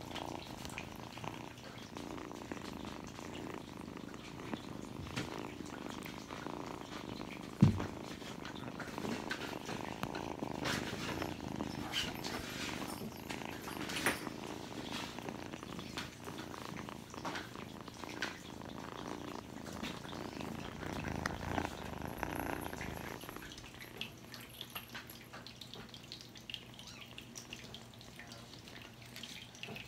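Kitten purring steadily, close up, with one loud thump about eight seconds in and a few light clicks. The purring stops a little after twenty seconds, leaving quieter room sound with a faint steady hum.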